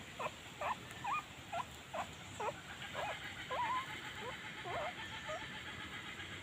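Newborn puppies squeaking: a string of short, high squeaks at about two a second, some bending up in pitch.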